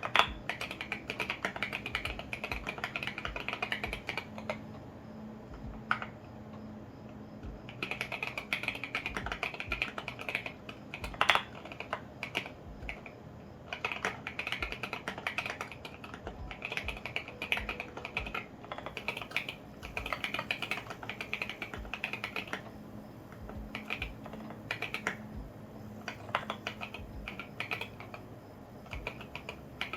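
Custom mechanical keyboard in an acrylic KBDfans Tofu65 case, with lubed and filmed Alpaca V2 linear switches and SA ABS keycaps, being typed on in fast runs of keystrokes with short pauses. A few strokes stand out louder.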